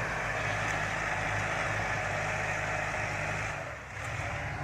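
Kubota tractor diesel engine running steadily, with a brief drop in level about three and a half seconds in.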